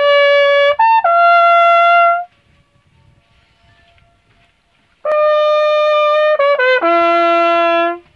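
Trumpet playing two short phrases of held notes with quick notes between, the second phrase falling to a low held note. In the pause of about three seconds between the phrases, the echo off the surrounding rock walls comes back faintly.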